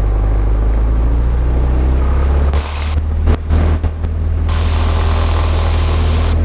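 Cessna 172's piston engine and propeller droning steadily in the cabin as the plane rolls down the runway. The engine note shifts about two and a half seconds in, with a few brief dips in level.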